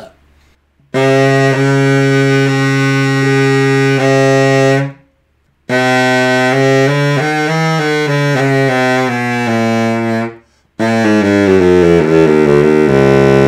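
King Zephyr baritone saxophone being play-tested after an overhaul. First one low note is held and tongued again several times, then a phrase of changing notes, and near the end a run that falls in pitch.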